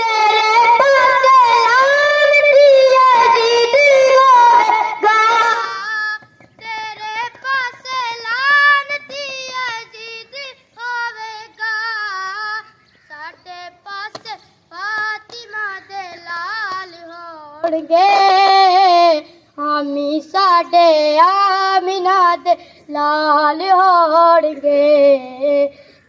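A boy singing a Punjabi naat, unaccompanied, into a microphone and amplified through PA loudspeakers, in long melismatic phrases with a brief pause about two-thirds of the way through. A thin, steady high-pitched tone sounds faintly under the voice for about ten seconds in the middle.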